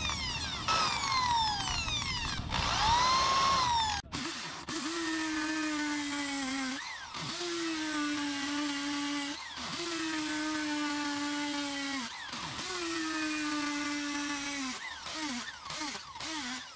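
Corded electric drill boring into a concrete paving block. Its motor speeds up and slows down three times at first, then runs in four long steady stretches, the pitch sagging a little under load and dipping briefly between them, and ends in a few short bursts.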